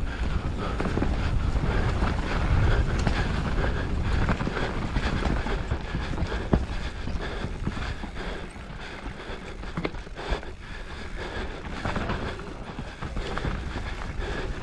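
Mountain bike descending a rough enduro trail: wind buffeting the helmet or chest camera's microphone, over tyre noise and the chain and frame rattling and clicking over bumps. A few sharper knocks stand out, about six and a half and ten and a half seconds in.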